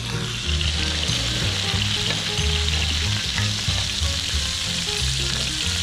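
Slices of pork belly sizzling and frying in their fat on a round griddle pan over a portable gas stove, a steady crackling hiss.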